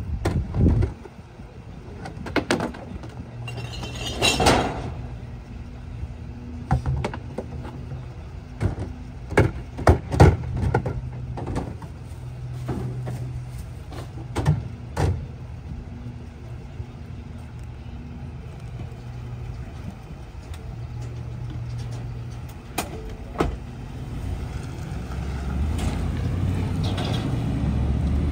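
Small Ford split-body garbage truck running at idle while trash carts are emptied into its hopper: repeated bangs and thuds of carts and rubbish hitting the body, with a low engine hum that swells and fades in patches. Near the end the engine grows louder as the truck pulls away.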